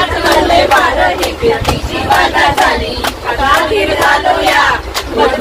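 A group of women singing and shouting together, loud and lively, over steady hand claps about twice a second.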